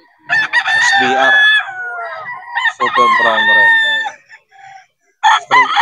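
Gamefowl roosters crowing loudly: two long crows, then a third begins near the end.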